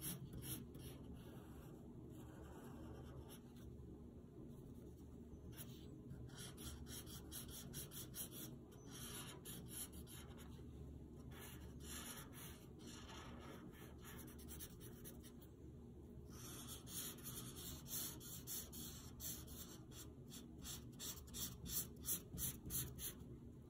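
Fine tip of a Prismacolor art marker scratching over drawing paper in many short strokes, faint, the strokes coming thicker in the second half.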